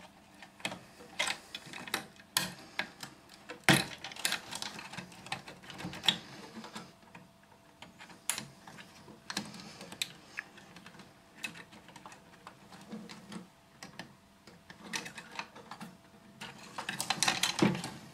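Irregular clicks, taps and light rattles of the plastic and metal parts of a Zebra P320i card printer being handled and taken apart, busiest near the end.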